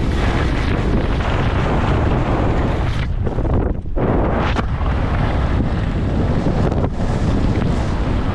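Wind buffeting a body-mounted camera microphone while skiing fast, with skis hissing over groomed snow. The snow hiss drops out briefly about three seconds in, while the skier is in the air on a jump, and returns with the landing.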